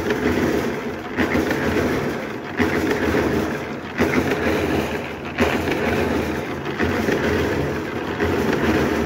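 Small portable drum concrete mixer running, its drum turning with a loud churning rattle that swells in a steady cycle about every second and a half.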